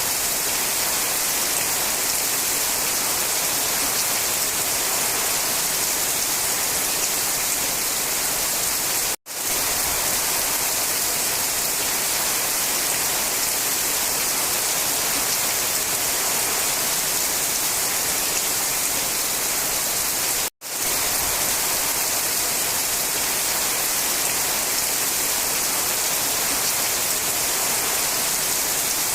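Steady, dense rain hiss with no distinct drops standing out. It cuts out to silence for an instant twice, about nine and twenty seconds in.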